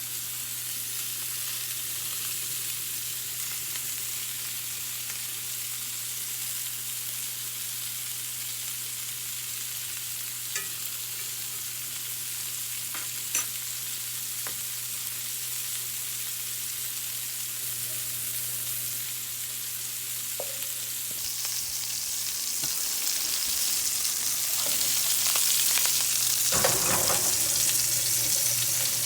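Food sizzling and frying in a hot pan: a steady hiss over a constant low hum, with a few light clicks. The sizzle grows louder and brighter about three quarters of the way through.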